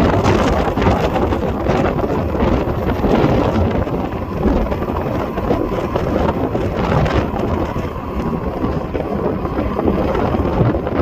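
Strong wind blowing across the microphone, a loud, steady rumbling noise that rises and falls slightly with the gusts.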